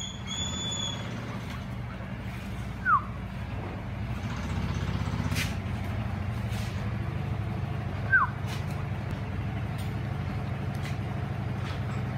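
A steady low mechanical hum, like a running motor, with two short falling whistled chirps about five seconds apart that stand out as the loudest sounds.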